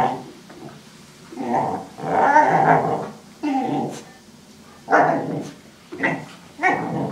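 Belgian Tervuren puppy play-growling at a rubber tire toy in short rough bursts every second or so while tugging and mouthing it.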